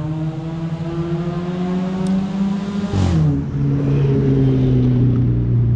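A motor vehicle's engine accelerating: its pitch climbs steadily, drops abruptly about three seconds in at a gear change, then holds steady at the lower pitch.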